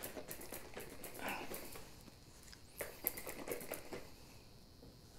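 Heavy cream, sugar and salt being shaken hard by hand in a small plastic bottle, a faint irregular patter of sloshing and knocks, with a few sharper clicks about three seconds in.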